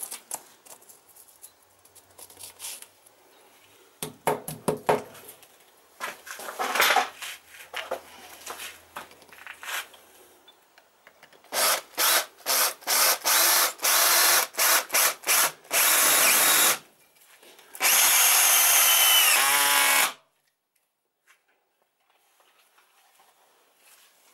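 Drill-driver in screw mode driving a long screw into a plugged hole in a masonry wall. A few knocks of handling come first, then about eight short trigger bursts and two longer runs, the last with its pitch falling near the end. The drill stops about 20 seconds in.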